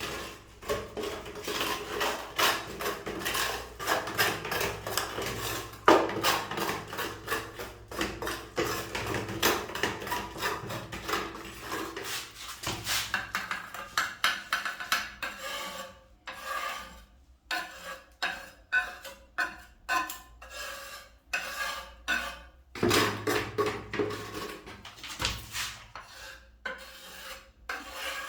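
White cement being mixed and worked with a hand tool in a container, with repeated gritty scraping strokes. The strokes are dense and continuous at first, then slower and spaced apart in the second half.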